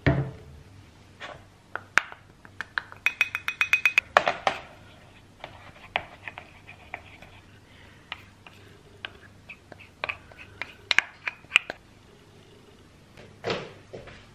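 A wooden spoon clinking and scraping in small ceramic bowls while peanut butter paste is mixed and scraped out: a quick, even run of ringing clicks about three seconds in, then scattered taps and scrapes, and a soft thump near the end.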